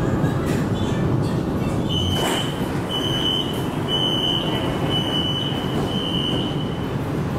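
A Hangzhou Metro Line 1 Type B train's door warning beeper sounds five high beeps about a second apart as the passenger doors open at a station. A short rush of noise comes just before the first beep, about two seconds in, and the train's equipment hums low underneath throughout.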